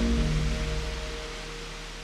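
Background music fading out on a few held notes over a steady rushing hiss.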